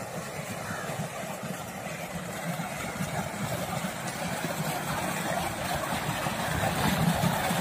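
Water gushing steadily from a tubewell outlet into its concrete tank and spilling into an irrigation channel: a constant rushing with a low rumble under it, a little louder near the end.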